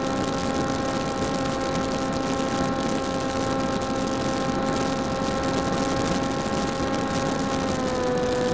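Electric motor and propeller of a small flying-wing model plane running at a steady cruise throttle, heard from the onboard camera as a steady whine over wind hiss; the pitch sags a little near the end as the throttle eases off.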